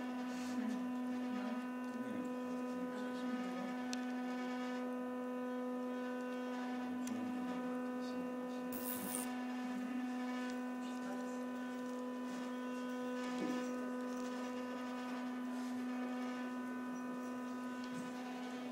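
Steady electrical hum holding one pitch with a stack of overtones, with faint scratching and crackling over it and a brief high hiss about nine seconds in.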